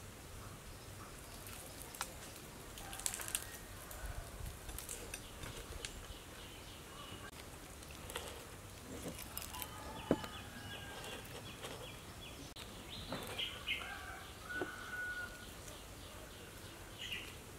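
Birds chirping faintly in the background, with a few sharp clicks and crunches from eating crispy fried chicken.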